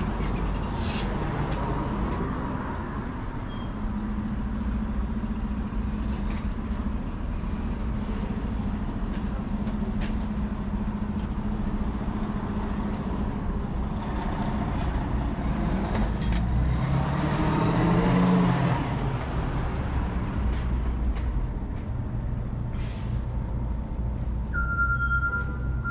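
Street traffic: a vehicle engine running steadily, then a vehicle accelerating past with its engine pitch rising about two-thirds of the way in. A steady high-pitched beep starts near the end.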